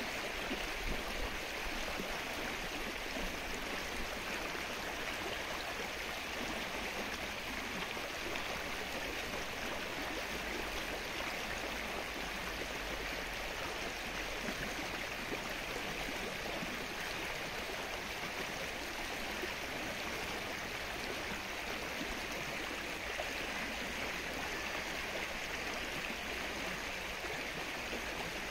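Steady rain falling on a lake's open water, an even hiss with no single drops standing out.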